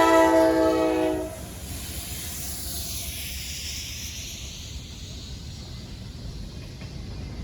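Freight locomotive air horn sounding a long chord of several tones, cutting off about a second in. After it, the slow-moving train goes on with a steady low rumble and a hiss that dips and then rises in pitch.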